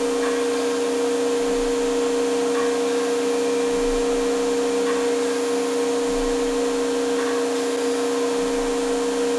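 CNC router spindle running at a steady high whine while its bit cuts a melamine sheet, with the rushing hiss of dust-collection suction through the dust shoe.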